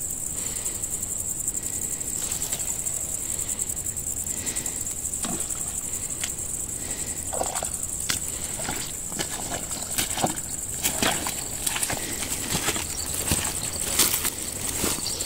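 Insects shrilling steadily in one high band, with scattered sharp clicks and knocks that grow more frequent from about halfway through.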